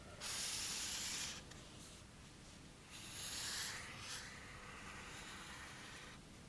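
Marker pen drawn across a gridded sheet of paper, giving a scratchy hiss in two long strokes of about a second each, the first right at the start and the second about three seconds in.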